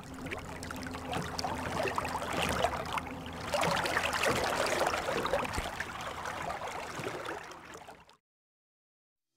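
Water sound effect: running, gurgling water with many small splashes, which stops abruptly about eight seconds in.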